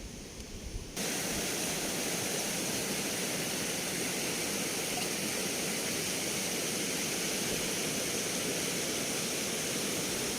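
Steady rush of fast-flowing river water. It cuts in abruptly about a second in, louder than the quieter hiss before it.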